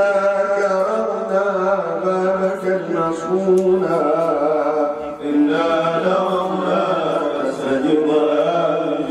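Male voices chanting a slow, melodic Islamic religious chant in Arabic, with long drawn-out notes over a steady low held tone.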